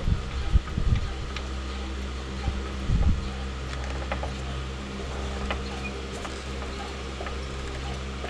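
Hydraulic floor jack being pumped to lift a control arm and compress the coil spring, giving a few low knocks in the first second and around three seconds in, then scattered faint clicks. A steady mechanical hum runs underneath throughout.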